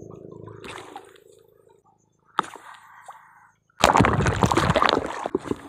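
A low steady hum fades out in the first couple of seconds. About four seconds in, a sudden loud burst of sloshing, bubbling water lasts over a second as the microphone goes under the sea surface.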